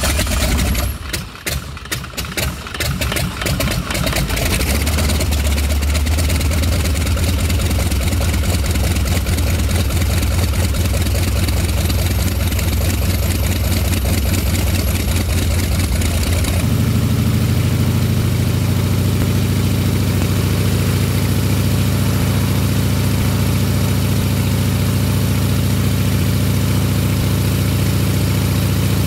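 Vedeneyev M14P nine-cylinder radial aircraft engine just after start-up, firing unevenly for the first few seconds before settling into a steady idle. About sixteen seconds in its speed steps up abruptly and holds steady at the higher rpm.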